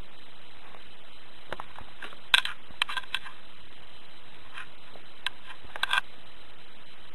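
Small sharp clicks of a metal RC body clip with a pull loop being handled and worked on a plastic body post, over steady hiss. A cluster comes about two to three seconds in, with the loudest click there, and a second few come about five to six seconds in.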